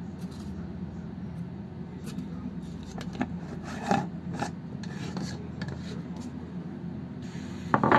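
Light rubbing and scraping with a few small knocks over a steady low hum, the sharpest knock near the end.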